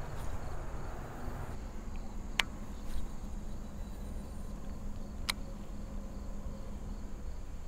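Steady chirping of insects over a low outdoor rumble, with two sharp clicks about three seconds apart, the sound of fishing tackle being handled.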